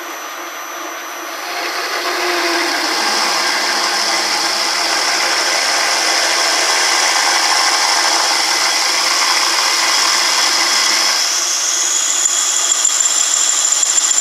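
Metal lathe spinning a cast aluminium billet while a 20 mm twist drill bores straight into it without a pilot hole: a steady cutting noise, with a high squeak coming in about eleven seconds in. The drill squeaks a little but keeps cutting through the aluminium.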